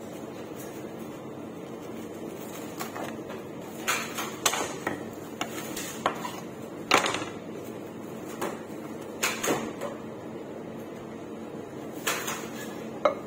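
Irregular sharp knocks and clinks of a utensil working inside a brass cocktail cup, over a low steady hum.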